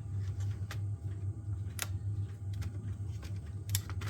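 A few sharp clicks and taps of the laptop's hard drive and parts being handled, over a steady low hum.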